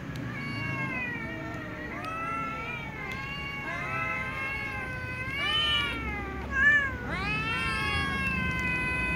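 Several cats meowing over one another at feeding time, long rising-and-falling meows overlapping almost without pause. It is the pitiful begging of hungry cats waiting for food, with one short, louder, higher cry about two-thirds of the way through.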